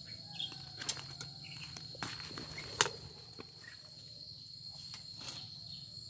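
Insects keeping up a steady high-pitched trill, with a few sharp taps and clicks scattered through it, the loudest a little before halfway.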